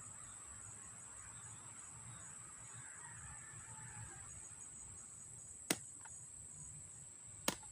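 Electric fan running quietly with a new bushing and shaft, a faint steady whir under a steady high-pitched tone. Two sharp clicks come near the end, about two seconds apart.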